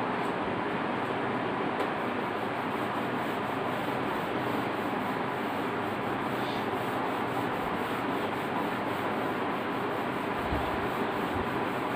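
Whiteboard being wiped clean: steady rubbing of the eraser across the board's surface.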